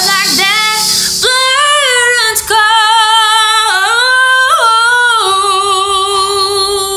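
A woman singing long held notes with vibrato, leaping up in pitch a couple of times, then settling on a long low note.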